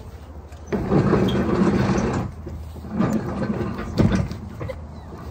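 Hobie 16 catamaran hull scraping and sliding against the dock as it is shoved off, in two rough grinding pushes, with a sharp knock about four seconds in.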